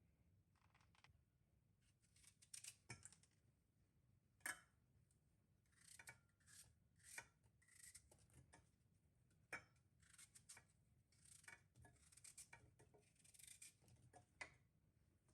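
A series of faint, short scratchy strokes, irregular and about a dozen of them, over a low hum.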